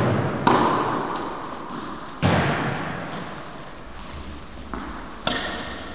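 Tennis balls struck with rackets, a few sharp hits a second or two apart, each ringing out in the long echo of a large indoor sports hall.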